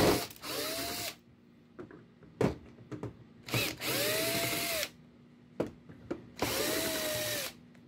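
Cordless drill-driver unscrewing three screws in turn: three short runs of the motor, each about a second long, with a whine that rises, holds and falls away. A few sharp clicks sound in the gaps between the runs.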